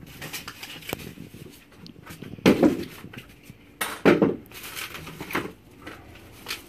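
Cardboard box and plastic-wrapped griddle parts being handled during unpacking: rustling and scraping, with two louder knocks about two and a half and four seconds in.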